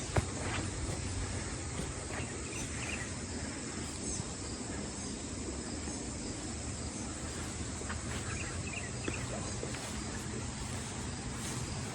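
Outdoor ambience: a steady background hiss and low rumble, with a few faint, brief chirps a few seconds in and again past the middle.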